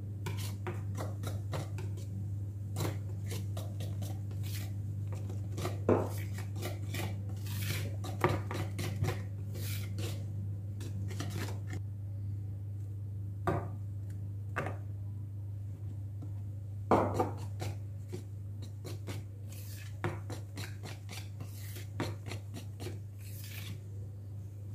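Wire whisk stirring thick cake batter in a plastic mixing bowl, its wires clicking and scraping against the bowl in irregular strokes, with a few louder knocks. A steady low hum runs underneath.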